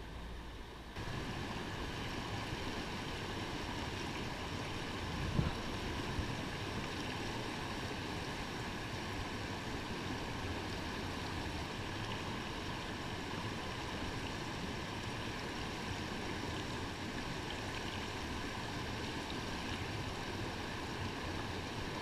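Creek water rushing steadily over rocks in a shallow riffle, stepping up in loudness about a second in. Two brief knocks sound over it a little after five seconds in.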